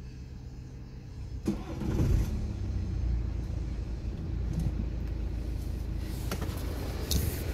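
BMW N47D20C 2.0-litre four-cylinder turbodiesel with 178,000 km, cranked and starting about a second and a half in, then idling steadily. A couple of sharp clicks come near the end.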